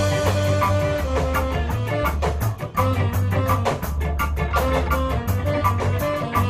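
Ska band music: chopped electric guitar chords over a bass line and drum kit, with a steady beat.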